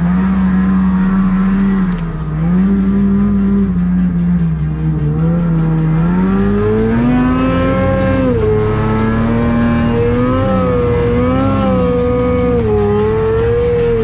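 Snow bike engine running hard under the rider, its pitch rising and falling with the throttle, with quicker wavers in the second half.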